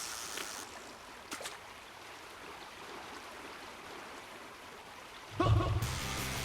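Steady rush of flowing stream water, with a brief knock about a second and a half in. Near the end a short shout is heard and background music starts.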